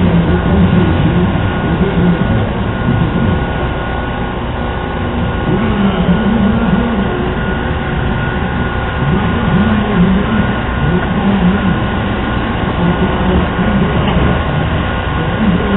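Suzuki motocross bike's engine running at the stand, revved up and down again and again in short blips.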